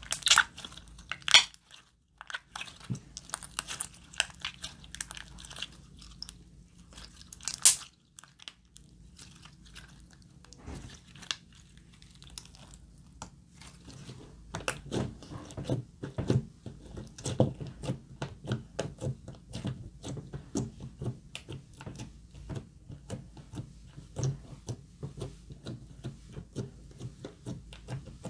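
Hands squeezing and kneading glossy slime, making sticky clicks and pops. There are a few loud snaps in the first eight seconds, then a dense, quick run of small pops through the second half.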